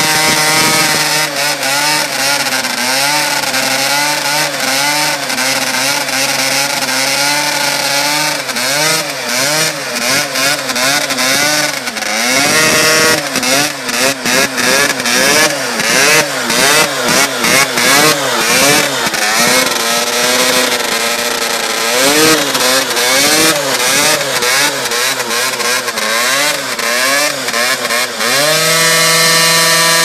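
Dirt bike engine revving hard in a stationary burnout, the rear tyre spinning inside a steel culvert pipe. The revs swing up and down again and again, held high and steady at the start and again near the end, with a run of sharp clatter through the middle.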